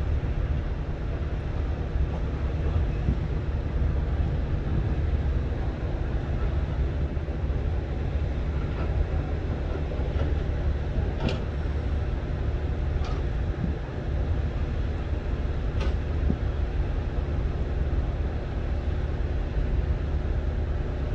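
Strong coastal wind blowing across the microphone as a steady low rumble, with rough surf beneath it. A few faint clicks come around the middle.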